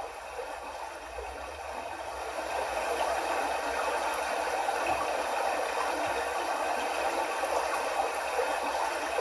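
Steady rushing noise like running water, swelling over the first few seconds and then holding even.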